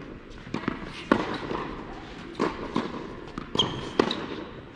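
Tennis balls struck hard by a racket and bouncing on an indoor hard court: a run of sharp pops, the loudest about a second in and again near the end, echoing in a large hall. A brief sneaker squeak comes about three and a half seconds in.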